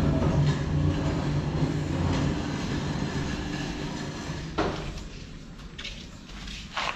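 Steady low mechanical rumble and hum, loud at first and fading over the next few seconds, with two sharp knocks in the second half.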